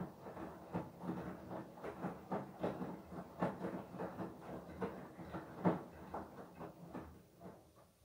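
Beko WTK104121W front-loading washing machine tumbling its load through soapy water in the wash, with repeated sloshing thuds as the laundry drops in the drum, about two or three a second. The tumbling dies away near the end as the drum pauses.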